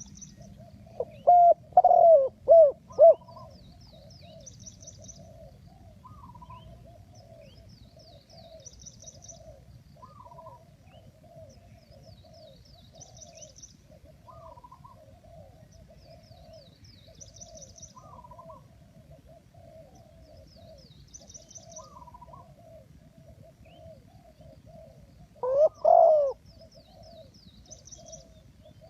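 Spotted doves cooing: a loud run of coos about a second in and another near the end, with softer continuous cooing in between. A small bird's high chirping phrase repeats about every four seconds.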